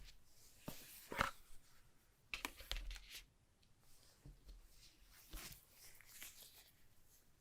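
Hands handling a smartphone box and its packaging: scattered soft rustles, scrapes and light taps, with the sharpest about a second in and a cluster a little later.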